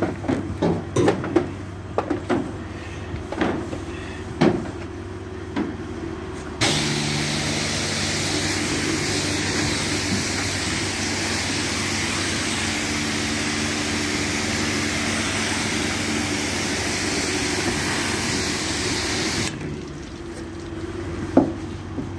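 Jet-wash lance spraying water at the back of a van: a steady, loud hiss with a low pump hum under it, starting about six seconds in and cutting off near the end. Before the spray, scattered knocks and clicks.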